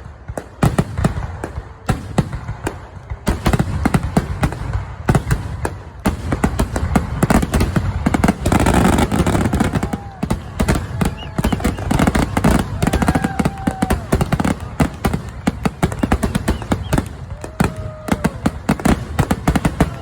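Aerial fireworks bursting in rapid, overlapping succession: a dense run of booms and crackling reports with no real pause, thickest about halfway through.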